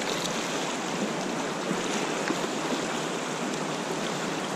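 Fast river water rushing steadily over a rocky, shallow riffle.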